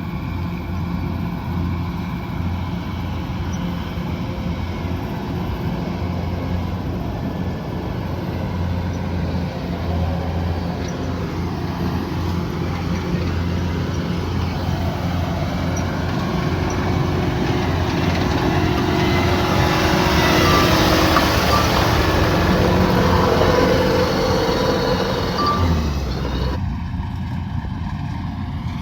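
Kubota DC108X combine harvester running, its diesel engine a steady low hum. The sound grows louder and harsher from past the middle, then drops off suddenly near the end.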